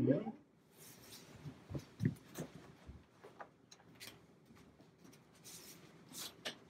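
Faint footsteps on carpet and clothing rustle as people get up from a sofa and walk to a door, with small clicks from the door handle as the door is opened near the end. A brief, louder sound comes right at the start.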